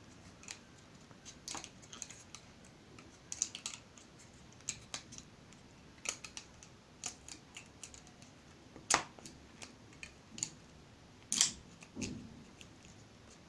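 Irregular small clicks and snaps of rubber bands being wound and stretched around balsa-wood sticks to bind them into a cross. There are two sharper snaps in the second half.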